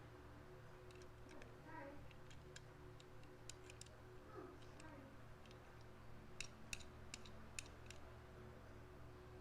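Faint, scattered light clicks and ticks of a plastic toy police car being handled, thickest in the middle of the stretch, over a low steady hum.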